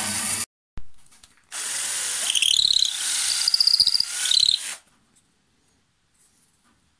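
A power drill boring a hole through a small piece of wood for about three seconds, with high squealing notes as the bit cuts, then stopping abruptly. Before it, another machine sound cuts off in the first half-second and there is a single click.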